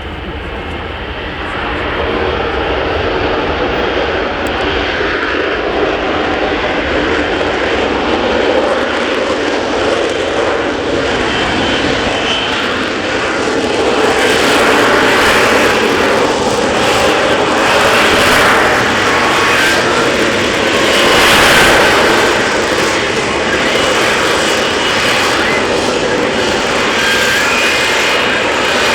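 Lockheed Martin F-35B Lightning II's jet engine running loud. It grows louder about two seconds in and again about halfway through, with a stronger hissing rush in the second half.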